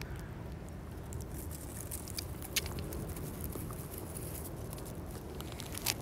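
Cat grooming itself with its tongue close to the microphone: scattered small wet licking clicks and rustles of dry straw, over a steady low rumble.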